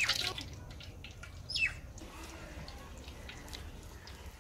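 Faint, sparse crackling from a large pan of hot frying oil, with one short bird chirp falling in pitch about a second and a half in.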